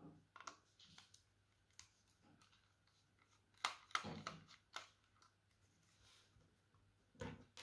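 Faint clicks and scrapes of a precision screwdriver working the small screws in a Microsoft Bluetooth mouse's plastic base, with a louder cluster of clicks about halfway through and another click near the end.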